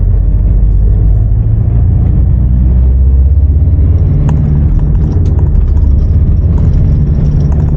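Mitsubishi L200's 2.5 litre turbo-diesel engine running under way, a steady low rumble with road noise. The engine is short of boost and feels underpowered, and the engine management light is on; the owner later traced this to wrongly connected airflow-system sensors.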